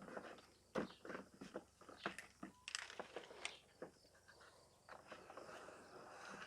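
Faint handling noises: a scatter of light clicks, taps and knocks, busiest in the first few seconds, as plastic parts of a pressure washer are fitted and handled.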